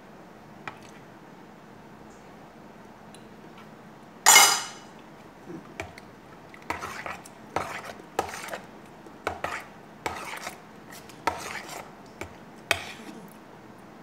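Metal spoons clinking and scraping against a bowl while stirring a salad: one loud ringing clink about four seconds in, then a run of scrapes and taps.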